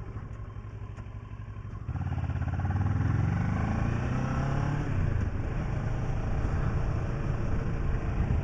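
Kawasaki ER-6f motorcycle's parallel-twin engine running low, then about two seconds in opening up and accelerating, its pitch rising. The pitch drops back about five seconds in, then the engine runs on steadily under power.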